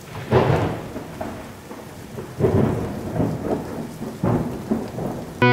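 Thunderstorm sound effect: a steady hiss of rain with three rumbles of thunder, each swelling suddenly and fading, about two seconds apart.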